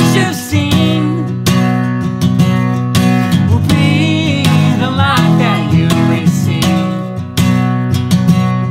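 Acoustic guitar strummed in a steady rhythm while a man and a woman sing together; the voices stop near the end and the strumming carries on alone.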